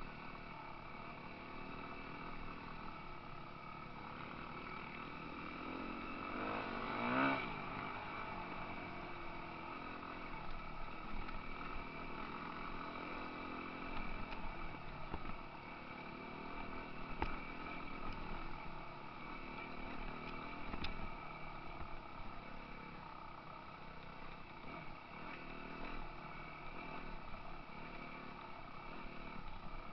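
Dirt bike engines running as a group of motorcycles rides along a trail. One engine revs up and drops back about seven seconds in, and there are a couple of sharp clicks later.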